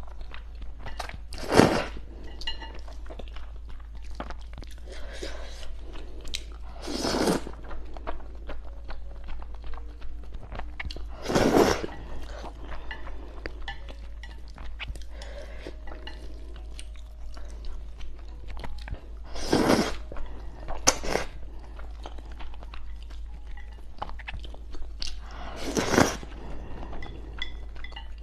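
Close-miked eating of sauce-coated noodles: five loud slurps of noodle strands, each about half a second, spread through the stretch, with wet chewing and small clicks of wooden chopsticks on a glass plate in between.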